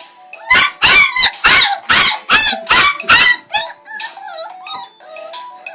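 Puppy squealing along to an alarm clock's electronic tune: about eight loud, high-pitched yelps in quick succession over three seconds, then fainter squeaky calls, with the alarm melody beeping underneath.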